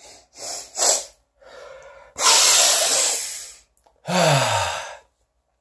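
A man breathing hard through his nose while trying to bring on a sneeze that doesn't come. There are two quick sniffs, then a long, loud breath, then a sigh with a falling voice near the end.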